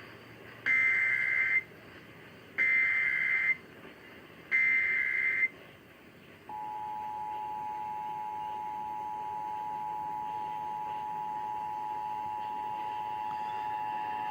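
Emergency Alert System SAME header for a Required Monthly Test: three short bursts of data tones, about a second each, sent twice a second apart. About six and a half seconds in, the steady EAS two-tone attention signal (853 and 960 Hz together) starts and holds.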